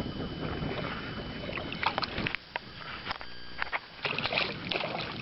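Handling noises in a small fishing boat: irregular knocks, clicks and rattles over a steady rushing background, with a brief low hum a little past the middle.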